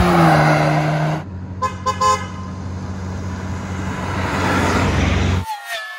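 A car engine passes with its pitch falling, then a car horn gives three quick toots over a steady idling engine rumble. Near the end the engine sound cuts off abruptly.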